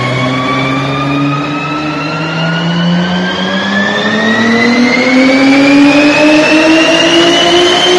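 Audi RS4 B5's 2.7-litre twin-turbo V6 pulling under full load on a chassis dynamometer, its pitch climbing slowly and steadily through the revs in a single gear pull and growing a little louder about halfway.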